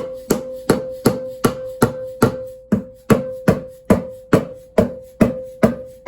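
Steady hammer blows on metal, about two and a half a second. Each strike rings with the same clear tone as a part is knocked loose on a small-block 350 engine.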